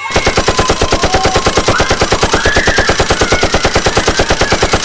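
Rapid automatic machine-gun fire, of the kind a toy gun or shooting game plays, at about ten shots a second. It is loud and perfectly even, and it starts and cuts off abruptly.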